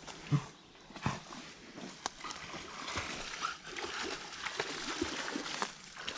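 Australian Shepherd moving through shallow muddy water, with irregular splashing and sloshing and a low thump near the start.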